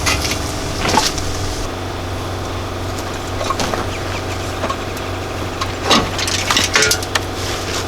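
Scattered knocks and cracking as parts of a wrecked truck are worked loose by hand, with a cluster of sharper cracks near the end, over a steady low hum.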